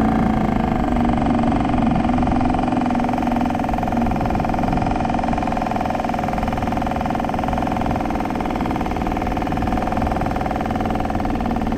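Suzuki 2.5 hp four-stroke outboard motor running steadily at low trolling speed, pushing the small skiff along.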